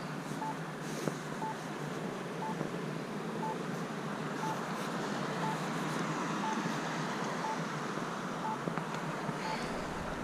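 Accessible pedestrian signal push button sounding its locator tone: a short, high beep repeating evenly about once a second. It is the signal's waiting-phase tone that marks where the button is before the walk sign comes on. Steady road-traffic noise runs underneath.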